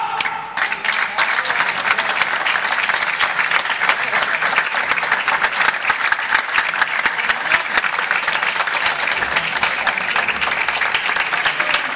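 Audience applauding: many hands clapping densely and steadily, building within the first second and keeping up throughout.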